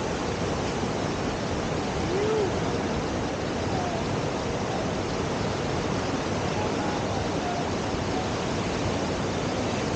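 Steady rushing whitewater of a river surf wave, the standing wave on the Deschutes River.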